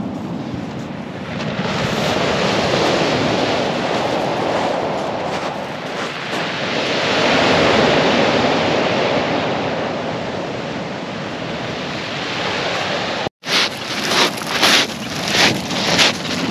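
Waves breaking and washing up a shingle beach, swelling twice, with some wind on the microphone. After a sudden cut near the end, footsteps crunch over the shingle pebbles, about two a second.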